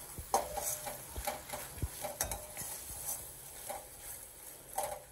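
A flat steel spatula stirring rose petals in sugar syrup in a stainless steel pot, scraping and tapping against the metal at irregular intervals, over the faint sizzle of the bubbling syrup.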